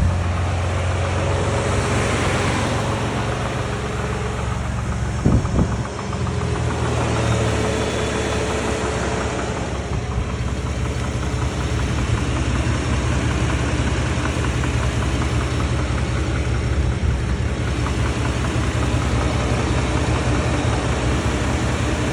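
2019 Shelby Baja Raptor's twin-turbo 3.5-litre V6 idling with a steady, rapid knocking from the engine bay. A single brief thump about five seconds in.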